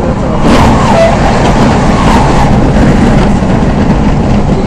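Running noise of a Z 5600 double-deck electric multiple unit heard from inside the carriage at speed: a loud, steady rumble of wheels on rail, with a brief rush of hiss about half a second in.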